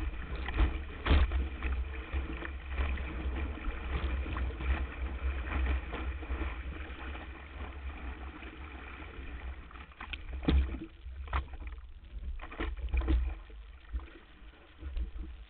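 Water rushing and splashing along a planing windsurf board, with wind buffeting the board-mounted camera and a few sharp knocks of the hull slapping the chop, most of them between about ten and thirteen seconds in. The rush eases in the last couple of seconds.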